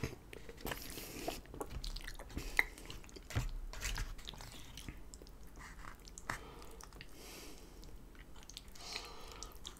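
Close-miked chewing of a mouthful of lasagna, with mouth clicks and smacks scattered through it. A sharp click about two and a half seconds in is the loudest.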